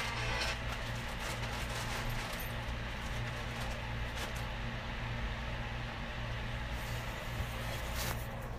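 Steady low background rumble and hum with a few faint clicks, after music fades out about half a second in.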